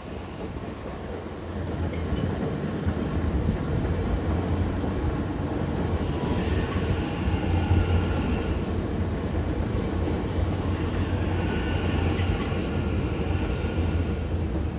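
An HCMT electric multiple-unit train passing: a steady rumble of wheels on rail that swells about a second and a half in. A few sharp clicks and faint whining tones come and go over the top.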